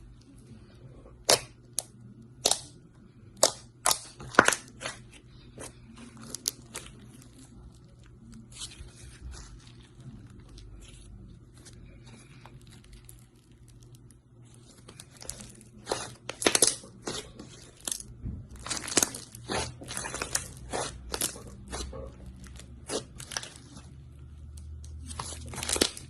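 Slime being squeezed and worked by hand, giving irregular sharp pops and crackles that come thicker in the second half.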